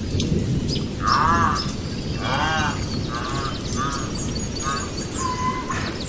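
A series of about six short animal calls, one every half second to second, with birds chirping high above them.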